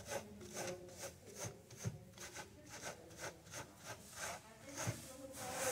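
Gloved hand rubbing dried seed heads back and forth against a wire-mesh screen in a wooden frame, a rhythmic scratching of about three strokes a second. The rubbing breaks the chaff down so the seeds fall through.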